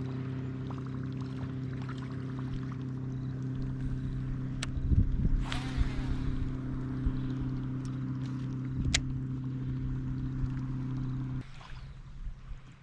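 A boat motor running at a steady, unchanging pitch, which shuts off abruptly about eleven and a half seconds in. A brief louder rush of noise comes around five seconds in, and there are a few sharp clicks.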